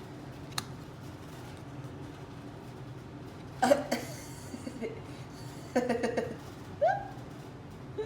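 A woman giving a few short chuckles and vocal sounds of amusement, over a steady low background hum. A single sharp click comes about half a second in.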